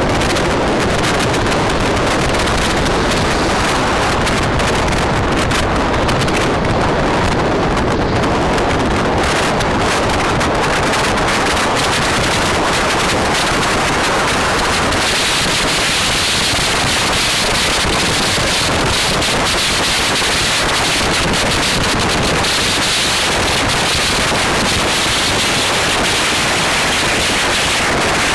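Wind buffeting the microphone: a loud, steady rushing noise that turns hissier about halfway through.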